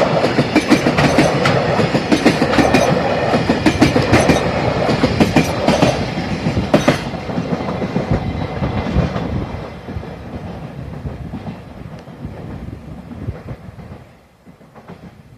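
Freight train wagons rolling past, their wheels clattering over the rail joints in a quick, uneven rhythm. About seven seconds in the clatter stops and the rolling sound fades away.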